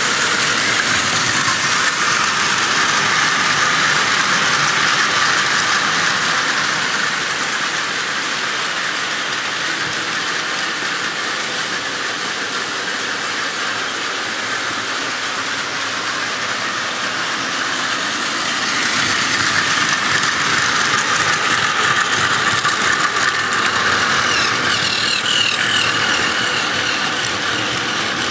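Plarail battery-powered toy freight trains running on plastic track: a steady whirring of small motors and gears with the wheels and wagons rattling along the rails. Louder at the start and again from about two-thirds of the way through, softer in between.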